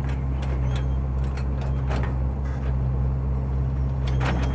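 Heavy-equipment diesel engine running steadily, with scattered clicks and knocks over it and a short cluster of them near the end.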